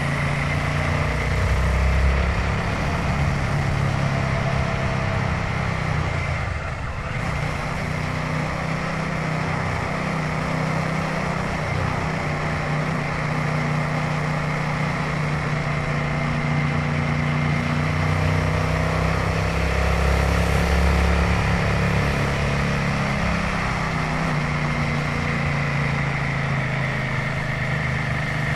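Royal Enfield Himalayan 450's single-cylinder engine running steadily under way, with road and wind noise; the engine note drops briefly about seven seconds in.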